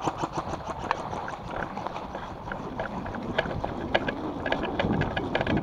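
Movement of a body-worn camera along a dry forest trail: quick clicks and knocks of footsteps and gear, with rustling noise on the microphone. The clicking thins out for a couple of seconds in the middle, then picks up again.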